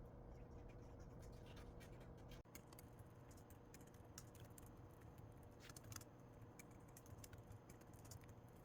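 Near silence: faint room hum with scattered small clicks and scratches, like light desk work.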